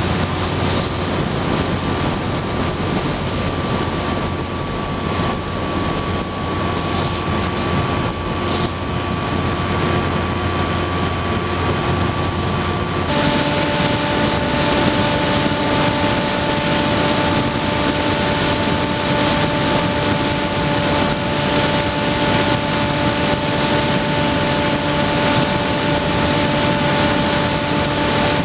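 Skywalker RC plane's electric motor and propeller running steadily in flight, heard from the onboard camera over dense rushing wind. About halfway through, the motor's tone shifts abruptly to a different steady pitch.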